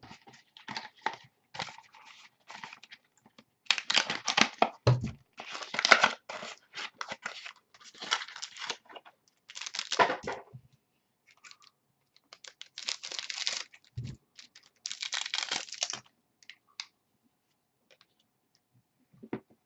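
Trading card packs being torn open by hand: wrappers tearing and crinkling in irregular bursts, with a couple of soft knocks.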